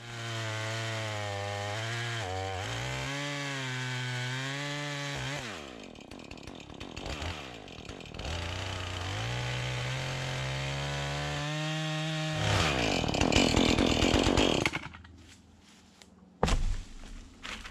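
Two-stroke chainsaw cross-cutting an old fallen spruce log, its engine pitch sagging and wavering under the load. The saw drops back about five seconds in and revs up again, turns to a louder rasp near the end of the cut, then falls away, followed by a single thump.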